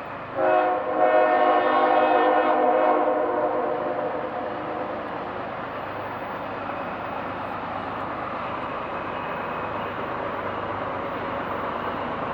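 Locomotive air horn, a Nathan Airchime K5HL, sounds its chord: a brief blast about half a second in, then a longer one that fades away over the next few seconds. It is followed by the steady running noise of the train.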